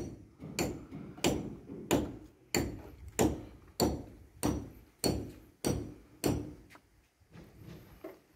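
Hammer blows in a steady rhythm, about three every two seconds, each a sharp knock with a short ring; the last few blows are lighter.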